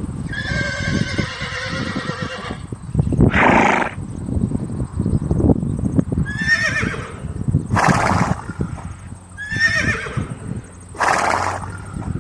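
Horse neighing: one long, wavering whinny, then three shorter whinnies, each followed by a rough, breathy snort, with low thumps throughout.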